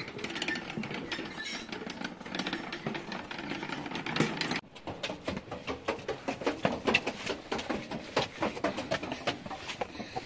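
A row of metal Buddhist prayer wheels in wooden frames being spun by hand one after another, making a fast, uneven clatter of clicks and knocks that gets denser about halfway through.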